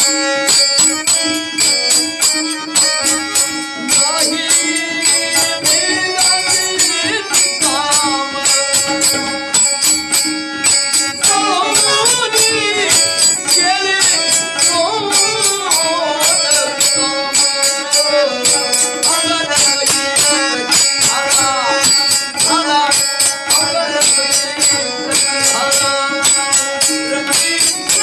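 Marathi folk devotional music: fast, steady jingling percussion over held drone notes, with a wavering melody line coming in about eleven seconds in.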